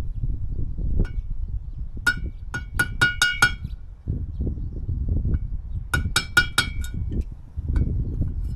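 Bright ringing metal clinks in two quick runs, about seven strikes two seconds in and about five more some six seconds in, from a metal tool tapping on the outboard's propeller hardware, over a steady low rumble.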